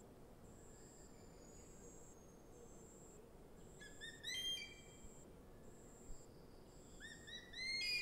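Changeable hawk-eagle calling: a quick run of high, ringing whistled notes that climb in pitch about four seconds in, and a second, louder run near the end. A high insect note pulses evenly about once a second behind it.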